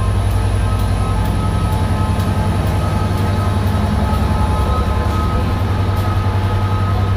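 Class 67 locomotive's two-stroke V12 diesel engine running loud as the locomotive moves past close by. It gives a deep steady drone with a steady high whine over it.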